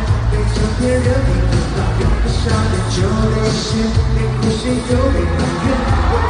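Live pop band music with a steady beat and heavy bass, played loud through a concert sound system.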